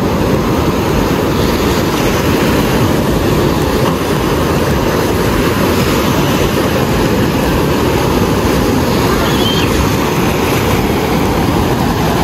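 Waves breaking and washing up a sandy beach, with a steady, heavy rumble of wind on the microphone.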